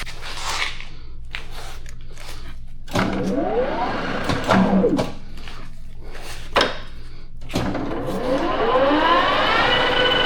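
Metal lathe's spindle motor spinning up with a whine rising in pitch, winding down with a falling whine, then spinning up again and settling into a steady whine near the end. A few sharp clicks and knocks come in between, from handling the machine.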